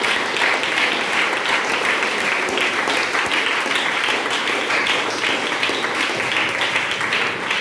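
A roomful of teenage students clapping: steady applause made of many quick hand claps, greeting the announcement of a winner.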